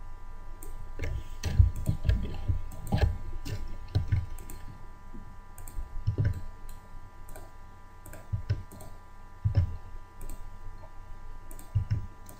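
Computer mouse clicking: single clicks at uneven intervals, one every second or two, over a faint steady electrical whine.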